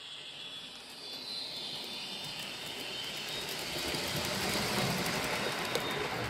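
Sound-equipped H0 scale model of a ČSD class 350 electric locomotive running, its sound decoder playing electric-locomotive running sound. It grows louder to a peak about five seconds in, then eases slightly, with a sharp click near the end.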